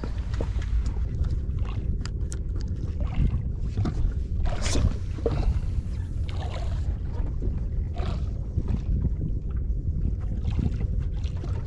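Steady low rumble of wind on the microphone and water against a small fishing boat's hull, with a faint steady hum and scattered light knocks. A brief swish about five seconds in, as a spinning rod is cast out.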